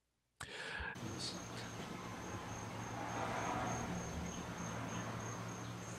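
Quiet room tone: a thin, steady high-pitched whine, faintly pulsing, over a low hum, starting about half a second in after digital silence.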